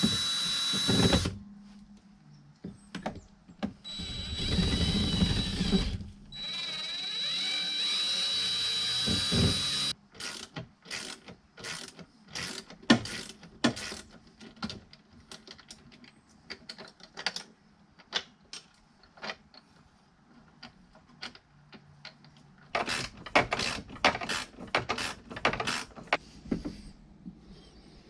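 Cordless drill running in bursts against the boat's old steering helm: a short run at the start, then two longer runs that end about ten seconds in, each with a steady high whine. After that, a scatter of light clicks and knocks of hand-tool work, busiest near the end.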